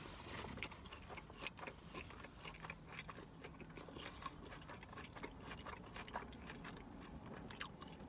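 A person biting into a cheeseburger and chewing it: faint, irregular wet mouth clicks and smacks.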